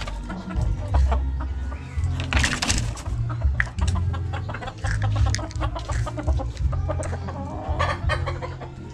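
Chickens clucking, with many short clicks mixed in.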